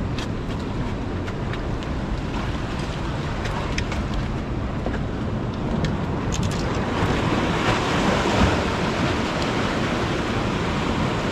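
Surf washing against the rocks of a jetty, with wind buffeting the microphone; a wave surges in louder about halfway through and then eases off.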